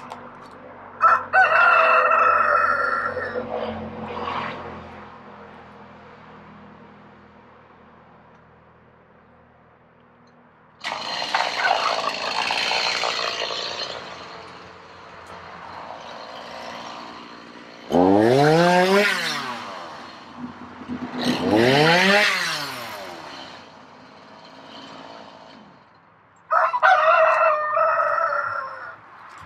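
Roosters crowing, about five crows spread apart, two of them close together with a pitch that rises and then falls. A faint low steady hum runs underneath.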